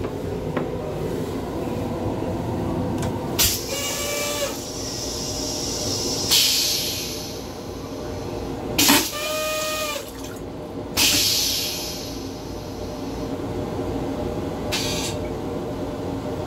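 Train toilet flush cycle in an M7 railcar restroom: a click, then rushes of water and air broken by two short whining tones, over the steady rumble of the moving train.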